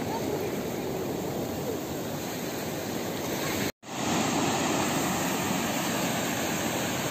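Steady wash of sea surf breaking on the shore, with a momentary cut to silence about halfway through.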